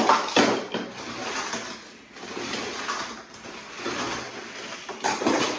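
Die-cast Hot Wheels cars rolling and rattling down the plastic ramps and spiral track of a toy garage playset, with a few sharp plastic clacks near the start and again near the end.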